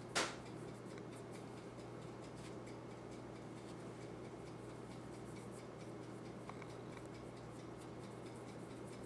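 Quiet room with a steady low hum. One brief, sharp handling noise comes just after the start, followed by a few faint light ticks as the pistol parts are handled.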